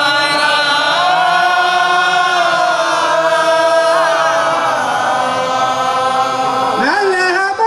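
A group of voices chanting a devotional mawlid refrain together in unison, on long held notes. Near the end the group stops and a single voice rises to begin the next line.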